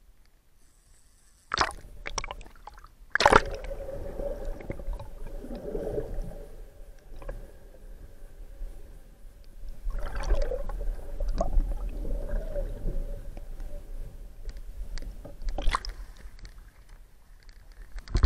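Water sloshing and gurgling around an underwater camera, starting suddenly about a second and a half in, with a few sharp knocks and a faint steady hum beneath.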